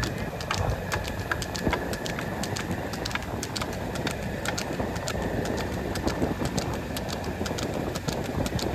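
Quick, irregular clatter of a racing buffalo's hooves striking the road, over a steady rumbling noise.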